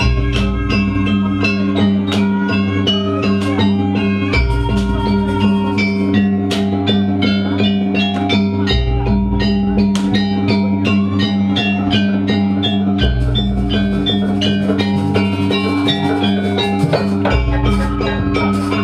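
Jaranan accompaniment music: a gamelan-style ensemble of drums, gongs and tuned metal percussion playing a fast, steady pattern, with a deep low tone returning about every four seconds.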